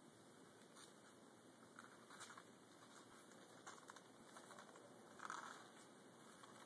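Near silence: a steady faint hiss with a few soft rustles and clicks, the clearest about two seconds in and just after five seconds.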